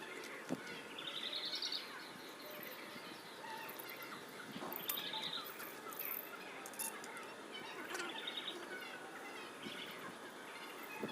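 Birds calling and chirping, with a short, fast trill high in pitch repeated three times, roughly every three to four seconds.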